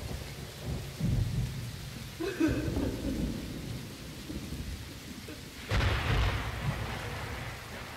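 Thunderstorm sounds layered into a dark ambient piece: low rolling rumble and rain-like hiss, with a sudden thunderclap about six seconds in that dies away over a couple of seconds. A brief wavering tone sounds about two and a half seconds in.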